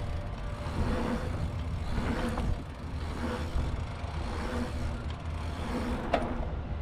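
Mountain bike being ridden along a dirt trail, heard from a bike- or rider-mounted action camera: steady rumble of tyres and wind on the microphone, with a faint short tone coming back about every three quarters of a second and a few sharp clicks.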